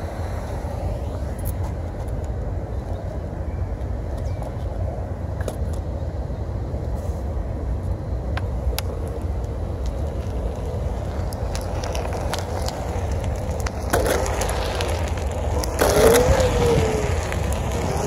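Onewheel electric board riding on pavement: a steady low rumble from the tyre and hub motor. Near the end it gets louder and the motor whine rises and falls in pitch as the board speeds up and slows.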